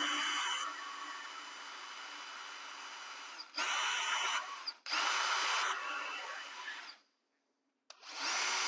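Power drill with a small number 44 bit boring into a 75mm ski boot's sole through its metal reinforcement. The motor runs in bursts of higher speed with softer stretches between them, stops for about a second near the end, then starts again.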